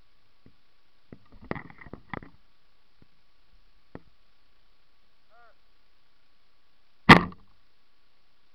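A single sharp, loud snap of a bow being shot from a tree stand about seven seconds in. Before it come soft rustles and clicks as the hunter shifts, and a brief faint chirp.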